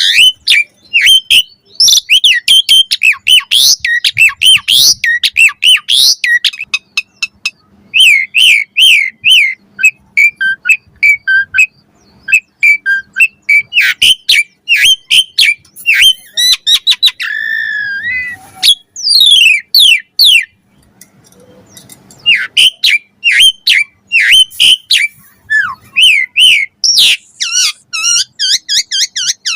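Asian pied starling (jalak suren) singing a long, varied song: rapid whistled notes that slide up and down, mixed with sharp clicking chatter and a short pause about two-thirds of the way through.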